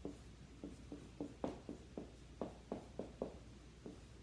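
Dry-erase marker writing on a whiteboard: a faint string of short, irregular strokes, about three a second, as letters and symbols are drawn.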